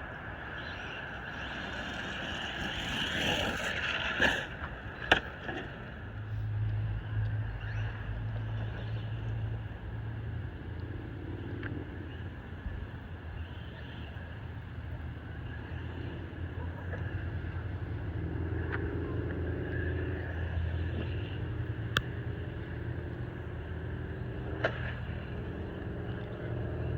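Traxxas Maxx RC monster truck on a 3S battery, its electric motor and drivetrain whining as it speeds up and slows, the pitch gliding up and down. A few sharp knocks stand out, and a low steady hum comes in about six seconds in.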